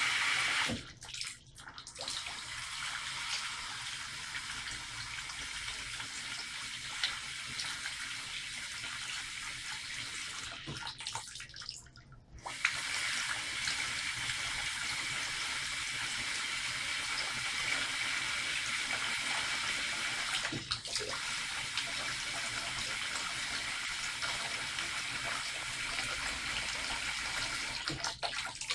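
Washbasin tap running a steady stream of water into a ceramic sink and its drain, with a continuous splashing hiss. It cuts out briefly about a second in, again around twelve seconds and near twenty-one seconds, and the flow thins and stops near the end.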